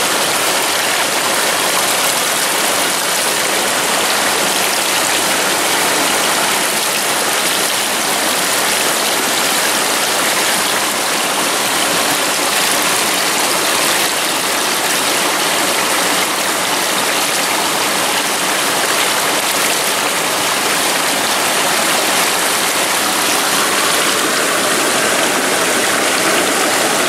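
Steady rush of water pouring from a pipe and splashing into a pool.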